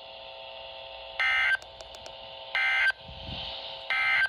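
NOAA Weather Radio SAME/EAS data tones: three short, identical warbling bursts about a second apart, the end-of-message code that closes an alert, over steady radio background hiss.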